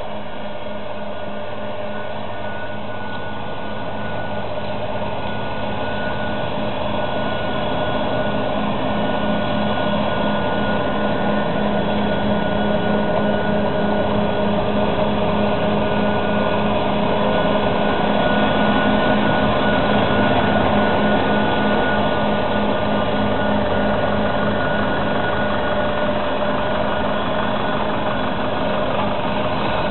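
Fendt 924 Vario tractor's engine running under load, driving a trailed Kemper Champion forage harvester as it chops maize. It is a steady drone with a constant whine, and it grows louder over the first twenty seconds or so as the machine comes closer.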